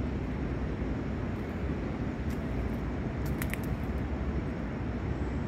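Steady low rumble of construction-site background noise, with a few faint clicks about halfway through.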